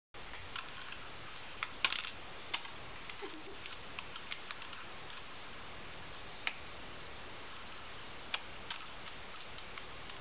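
Crimson-bellied conure working at the keys of an old computer keyboard with its beak: irregular plastic key clicks, the loudest a small cluster about two seconds in, over a steady hiss.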